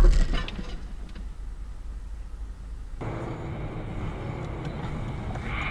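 Road and engine noise from inside a moving car, picked up by a dashcam microphone. The sound changes abruptly about three seconds in.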